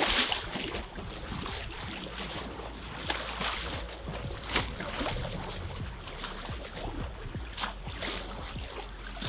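Water lapping and splashing at the foot of a concrete seawall, with a few short, sharper splashes and a low steady rumble underneath.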